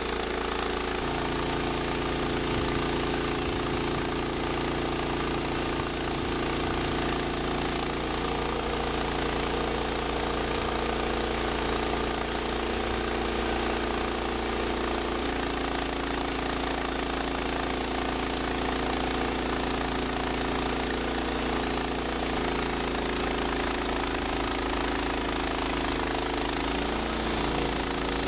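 Norwood LM29 portable bandsaw mill running steadily under its gas engine as the band blade saws through a pine log, with a slight change in pitch about a second in and again about halfway through.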